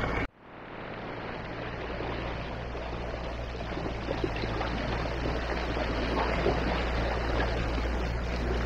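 A MacGregor 26X sailboat under way on its outboard motor: the motor runs with a steady low hum while water rushes along the hull. Just after the start the sound cuts out and then fades back in over about a second.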